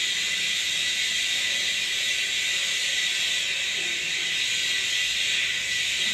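Steady, even hiss, strongest in the upper range, with a thin steady high tone under it, from the played prank clip's soundtrack.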